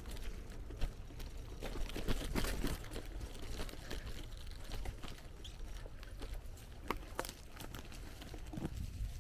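Bicycle rolling over a rough path: scattered crunching and rattling clicks over a steady low rumble, with two sharper clicks about seven seconds in.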